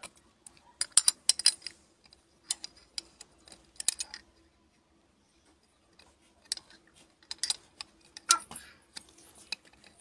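Light clicks and clinks of a thin iron rod tool against a glass bottle as it works a tiny cot leg into place through the neck. The clicks come in small irregular clusters, with a pause of a couple of seconds in the middle.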